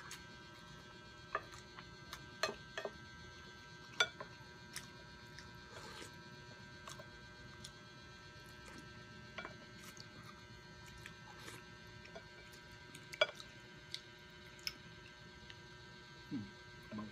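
Quiet eating sounds: scattered sharp clicks of wooden spoons and utensils against a glass soup bowl and plates, with chewing and a few sips of sour soup broth. A steady electrical hum runs underneath.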